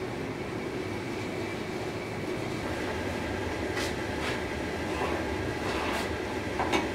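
Gas forge burner running with a steady rushing sound while a sword blade heats for heat treatment. A few sharp metal clinks sound as the steel blade is slid in and out of the forge opening, the loudest near the end.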